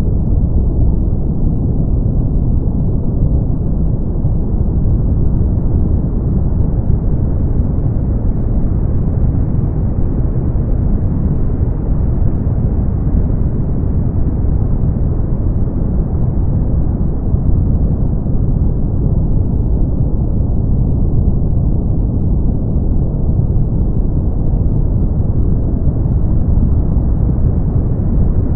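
Brown noise: a steady, deep hiss with most of its energy in the low end and almost nothing above the upper mids. It has no tones or breaks, only a slight slow drift in its brightness.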